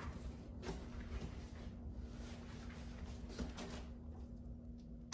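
A few soft footsteps in a small hallway, over a faint steady hum.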